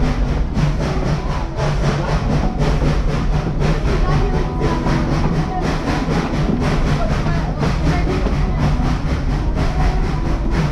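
Steam-hauled passenger train rolling along the track, heard from aboard: a steady rumble with a rapid, even rhythmic beat.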